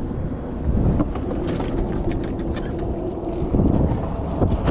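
A motorboat engine running steadily with a low rumble and a faint steady hum, wind buffeting the microphone, and a few light clicks and knocks.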